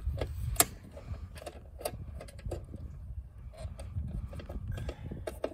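Small, irregular clicks and taps of a tool working the terminal screws as the red and black 240-volt wires are tightened onto the lugs of a heat pump disconnect box, the sharpest click about half a second in, over a low rumble.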